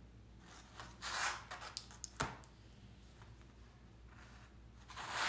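Pencil scratching on a stretched canvas in a few short strokes, with one sharp click from the ruler a little over two seconds in.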